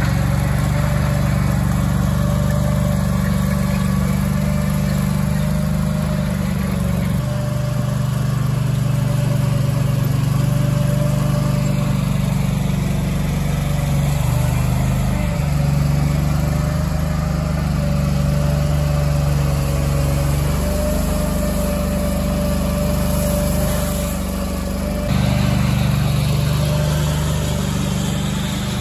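Dingo compact tracked loader's engine running steadily as the machine works across a gravel bed, with a thin steady whine above the low engine hum. The engine note shifts a few times as the machine moves.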